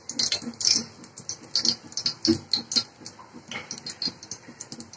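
Refined cooking oil poured into an aluminium pot on a stove, with many irregular small clicks and pops.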